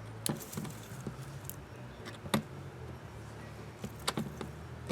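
Scattered clicks and clinks of metal hand tools being handled while fasteners on an old faucet are worked on. The loudest knock comes about two and a half seconds in and a quick pair near the end, over a low steady hum.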